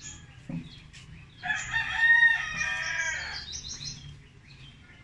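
A rooster crowing once: one long call of about two seconds, starting about a second and a half in.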